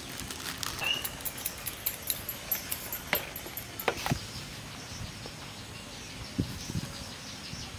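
Flour being sifted through a sieve shaken over a stainless-steel mixing bowl: a run of light taps and clinks for about the first four seconds, then only faint background.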